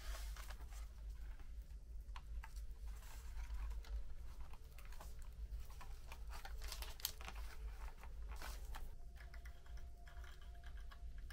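Light clicks, taps and scrapes of plastic model-kit parts being handled and pressed into place by hand, scattered irregularly, over a steady low hum.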